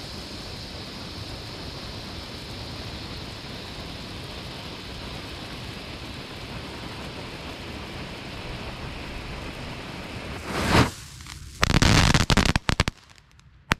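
Red flare burning with a steady hiss. About ten seconds in, a ground firework goes off with a loud burst, then loud crackling bangs as it throws out a shower of sparks for about a second and a half, stopping abruptly.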